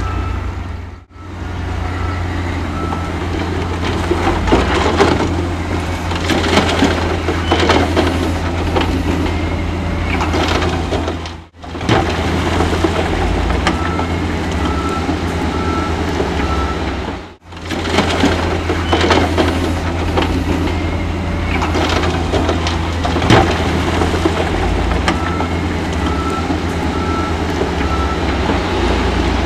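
Heavy diesel earthmoving machinery working stone: a steady low engine drone with clanking and scraping. A reversing alarm beeps in short runs three times, and the sound drops out briefly three times.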